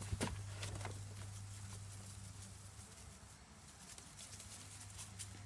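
Crinkling paper bag and light taps as a cat's paw swipes out from inside the bag at a toy on a wooden floor: a few sharp taps in the first half second, then scattered faint ticks, over a steady low hum.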